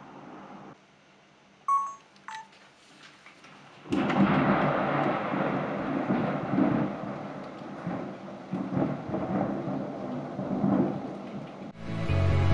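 Two short electronic beeps. Then, about four seconds in, a sudden onset of heavy thunderstorm noise: a downpour hissing, with swelling rumbles of thunder. It drops away just before the end.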